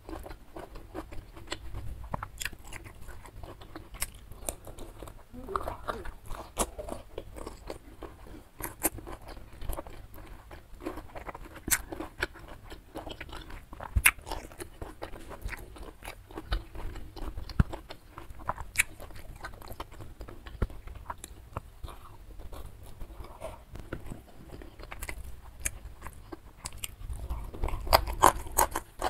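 Close-miked chewing and crunching of a mouthful of food, with many irregular sharp clicks. The bites get louder near the end.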